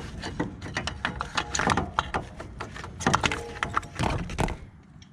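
Hand tools and metal parts clicking and clinking in quick, irregular taps as the serpentine belt tensioner is unbolted and worked loose, stopping about four and a half seconds in.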